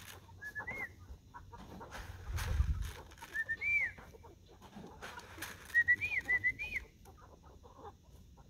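Chickens giving short, high chirps in little groups: one about a second in, another a few seconds later, and a run of four about six seconds in, over scattered scuffling and clicks. A brief low rumble comes about two and a half seconds in.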